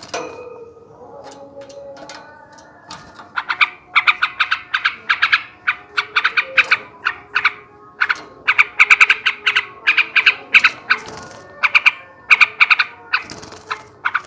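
Male yellow-vented bulbul singing, with phrases of rapid short chattering notes that grow loud and dense about three seconds in and come in bursts with brief pauses between them.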